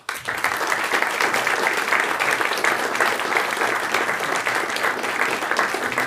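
An audience applauding steadily: many hands clapping at once in a lecture hall.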